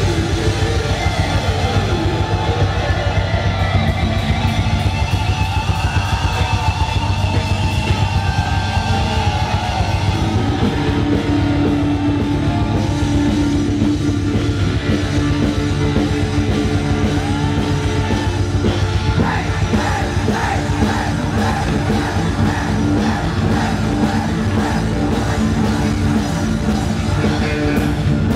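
Rock band playing live at full volume: drum kit and guitar, with a singer's voice over the top.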